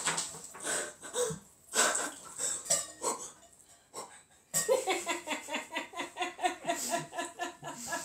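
Sharp gasping breaths with some clatter of ice and a tumbler after ice water has been poured over a person's head, then, from about halfway, a long run of rhythmic laughter.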